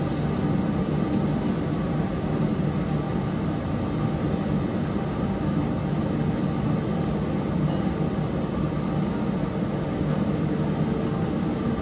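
Steady low hum with an even rush of noise in a kitchen at a lit gas stove, where a lidded pan of curry is cooking.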